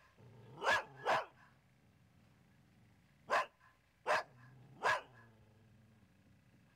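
A dog barking: five short barks, a quick pair about a second in, then three more spaced well under a second apart a little past halfway.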